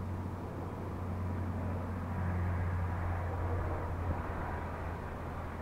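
Wind rumbling across the microphone of a head-mounted action camera in a steady low rumble that swells a little in the middle.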